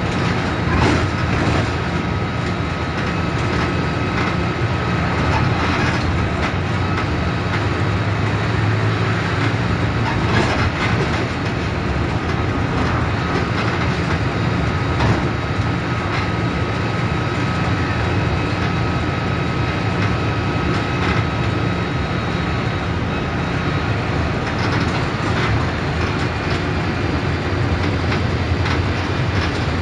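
Mercedes-Benz OF 1721 bus's front-mounted four-cylinder diesel engine running steadily under way, with the bus body rattling and knocking throughout. A faint steady whine sits over the engine for much of the time.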